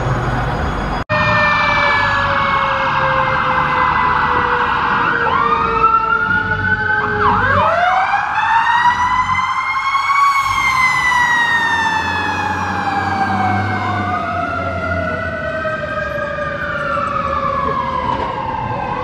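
Fire apparatus sirens wailing as the trucks respond. After a brief dropout about a second in, several siren tones overlap and glide slowly downward. About seven seconds in, a wail climbs sharply, then winds down slowly.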